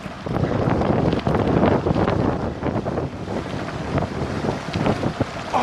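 Heavy wind buffeting on the microphone during a fast bicycle descent, with a steady clatter of the cyclocross bike's tyres over loose gravel.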